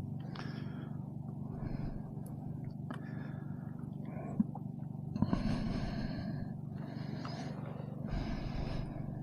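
A person breathing heavily inside a full-face motorcycle helmet, close to the microphone, in irregular hissy breaths, over a steady low hum. There is a sharp click about four seconds in.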